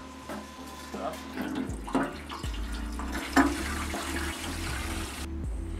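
Water running under pressure from an outdoor spigot into a welded aluminium gas tank during a leak test, a steady rush that stops abruptly near the end.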